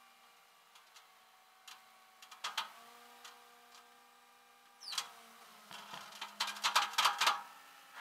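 Metal clicks and clanks of tie-down hardware being fitted and tightened at a car's front wheel on a flatbed tow truck's deck. A few scattered clicks come first, then a quick run of clicks in the second half, over a faint steady hum.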